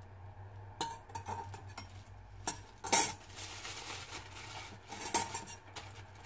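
Metal spoon clinking and scraping against the pot and a dish while spooning in soybean paste, with the sharpest clink about three seconds in. A second or so of rustling follows, then a few more light clinks.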